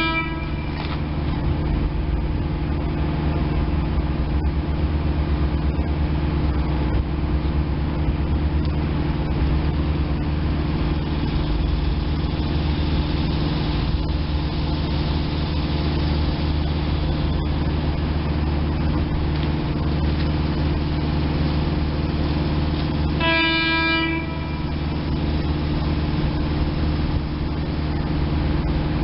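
A train horn sounds one short blast, about a second long, roughly 23 seconds in, over a steady low drone of idling rail equipment.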